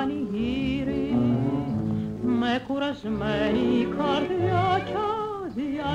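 Music: a melody sung or played with heavy vibrato over a steady bass accompaniment.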